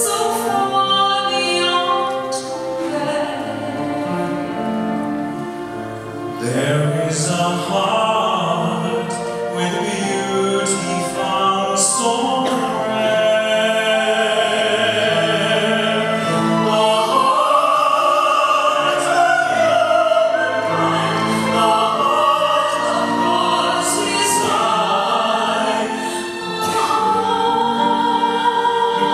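Solo voices and a mixed choir singing a slow sacred song with piano accompaniment.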